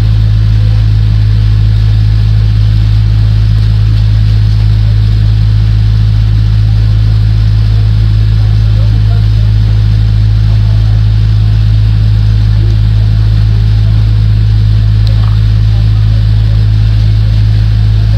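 A loud, steady low hum that holds unchanged throughout.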